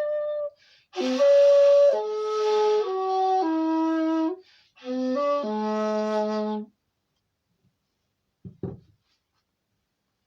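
Bamboo flute playing short phrases of held notes that step downward in pitch, breathy on the attacks, stopping about two-thirds of the way through. A soft low knock follows near the end.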